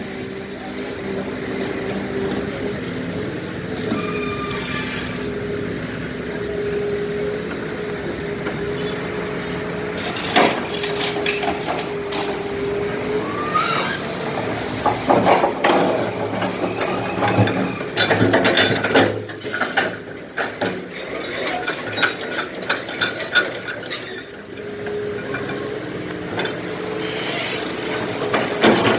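Hydraulic excavator running with a steady engine tone, with clanking and scraping as it digs concrete rubble: scattered knocks about ten seconds in, then heavier clattering over much of the second half.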